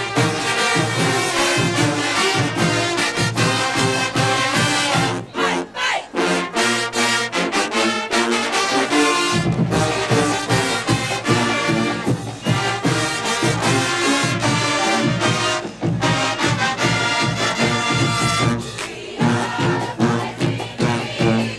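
A marching band's brass section, with sousaphones, trumpets and trombones, plays a loud stand tune over drums with a steady beat. The deep bass drops away for a few seconds near the middle and then comes back in strongly.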